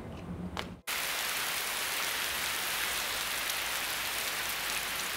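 Steady rain falling, cutting in suddenly just under a second in as an even hiss.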